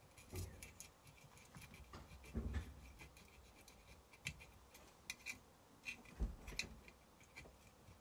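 Faint, irregular small clicks and scratches of a soldering iron and desoldering braid being worked over a circuit board's solder joints, with a few soft bumps of handling.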